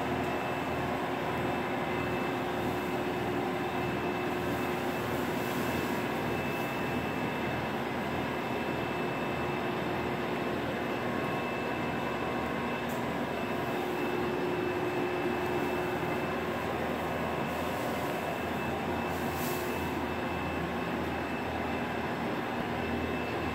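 A steady mechanical drone, with a constant low hum and a thin high whine that hold unchanged throughout.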